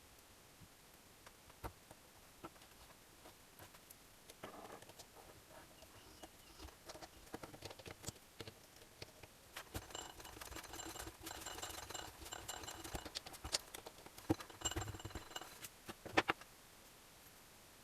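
Light clicks and clinks of hand tools and metal engine parts being handled during assembly of a small tiller engine. A denser run of rapid clicking comes in the second half, with a couple of sharper knocks near the end.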